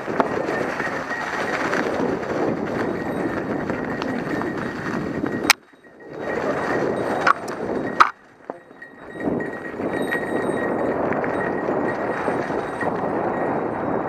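Mountain bike rolling over rough trail: steady rattling and tyre noise, which cuts out twice briefly about halfway through, with a few sharp clicks around those breaks.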